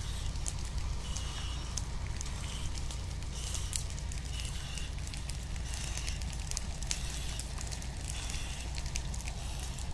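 A combine harvester on fire, crackling with many sharp pops over a steady low rumble.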